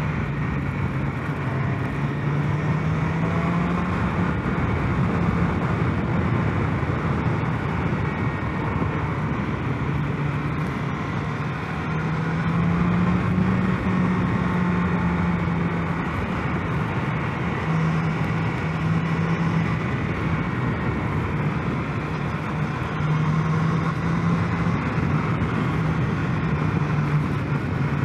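Motorcycle engine running under way at road speed, its pitch stepping up and down a little several times with the throttle, over a steady rush of wind.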